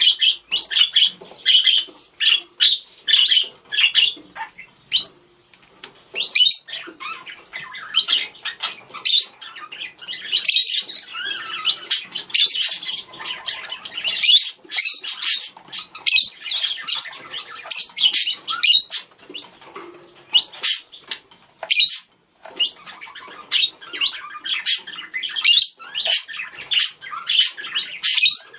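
Budgerigars calling and chattering to each other: a rapid, continuous stream of high chirps, warbles and short squawks from several birds.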